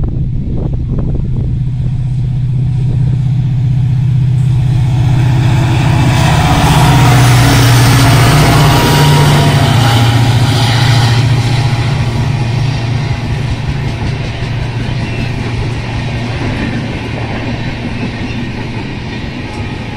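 WDP4 diesel-electric locomotive's two-stroke EMD engine working hard under acceleration, loudest as it passes about seven seconds in, followed by the wheel and rail noise of the passenger coaches rolling by.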